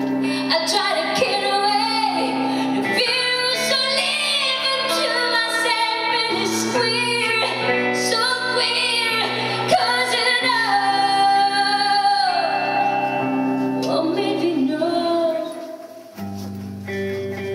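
A woman singing a slow song live into a microphone over sustained instrumental accompaniment. Near the end the singing stops, the music dips, and the accompaniment picks up again with a new pattern.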